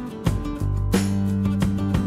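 Background music with a steady drum beat over held bass notes.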